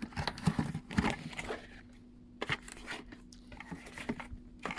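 Rustling, crinkling and clicking as a tyre inflator's packaging is opened and handled. The handling is busiest over the first couple of seconds, then thins to a few scattered clicks, with a sharp one near the end.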